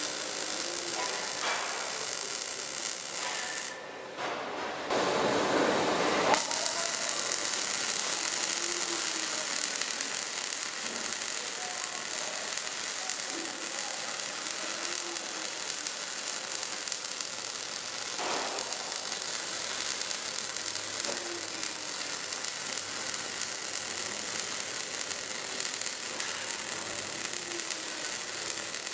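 MIG/MAG welding arc running a bead on 3-inch pipe, a steady crackling hiss. It breaks off briefly about four seconds in, then comes back louder.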